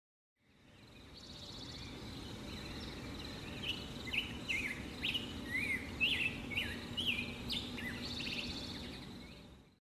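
Songbirds chirping over a steady outdoor background hiss: a run of short, quick sweeping chirps in the middle, with thin high trills near the start and near the end. The birdsong fades in about half a second in and fades out just before the end.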